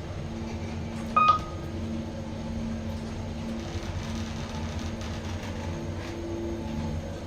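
Kone-modernised swing-door lift running, a steady motor hum with a low rumble, with one short electronic beep about a second in.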